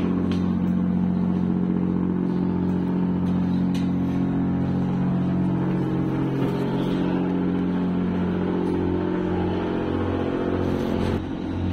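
The ferry's diesel engine machinery running with a steady low drone and a slow, beating pulse underneath.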